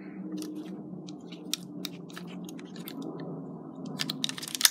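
Hard plastic of a Dino Brace toy being handled: scattered light clicks and scrapes, with a quick run of clicks near the end.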